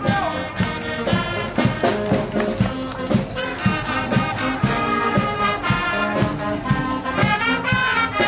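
Marching wind band of brass, clarinets, saxophones and drums playing a march in the street, with a steady drum beat of about two strokes a second.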